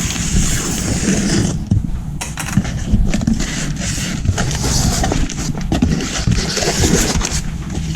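Cardboard box being opened by hand, its flaps and the packaging inside rustling and scraping, with many small clicks and crackles.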